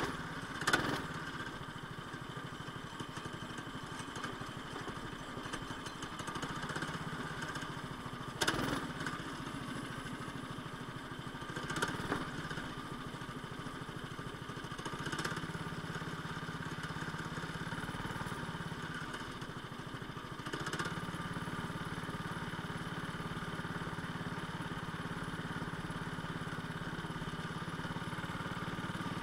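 Go-kart engine running steadily as the kart is driven along the track, heard from on board, with a few brief knocks over it, the sharpest about a second and eight and a half seconds in.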